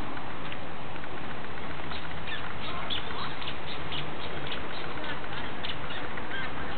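Eastern spot-billed ducklings peeping: a quick run of short, high calls starting about two seconds in, over steady background noise.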